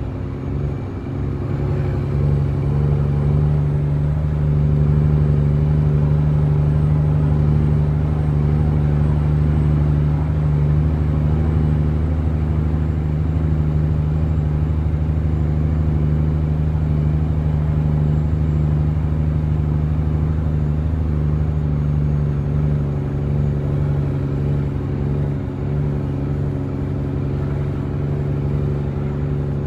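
Heavy truck's diesel engine running steadily under way, heard from inside the cab as a low, even drone. It gets louder about two seconds in and eases slightly past the twenty-second mark.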